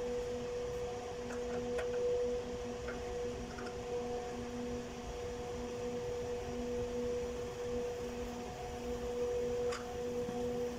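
A steady hum, with a lower tone pulsing gently beneath it, over a constant faint hiss. A few faint ticks sound about two seconds in and near the end.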